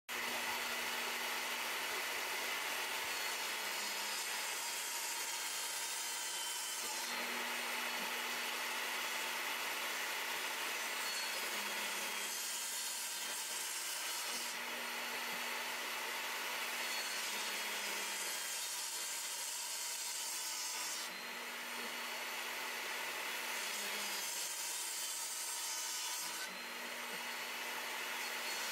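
Portable jobsite table saw running steadily while a board is fed across the blade again and again, cutting a row of closely spaced kerfs into its end to notch it. The cutting sound brightens and eases in stretches of several seconds over a constant motor hum.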